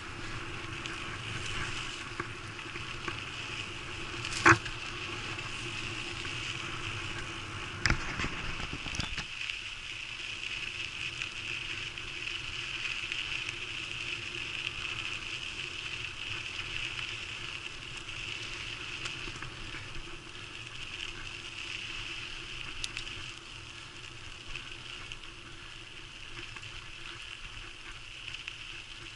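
A bicycle rolling fast over a dirt trail, heard through a bike-mounted camera: a steady rattling rolling noise with a high buzz, and two sharp knocks from bumps at about four and eight seconds in. After about nine seconds the low rumble drops away and the ride sounds smoother.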